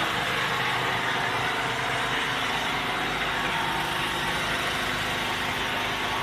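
An engine running steadily with an even hum under a constant hiss.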